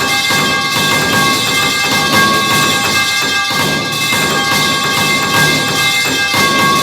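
The 'metal pipe falling' meme sound effect, many clangs piled on top of one another into a continuous metallic clatter with steady high ringing tones.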